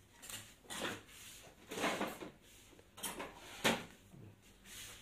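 Soldering iron tip scraping and working at a transistor leg on a circuit board: about six short, irregular scraping sounds.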